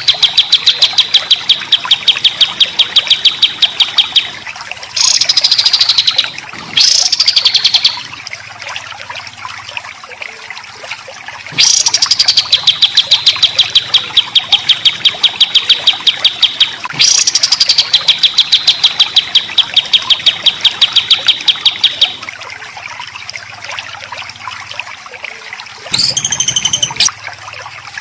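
A songbird on a masteran training recording repeating long, fast trills of harsh, evenly spaced notes, about ten notes a second. Each run lasts about four to five seconds, and short rising calls come between the runs.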